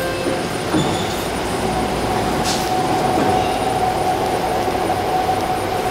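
BART train in the underground station pulling out along the platform: a steady rumble of wheels on rail with one high whine held at a steady pitch.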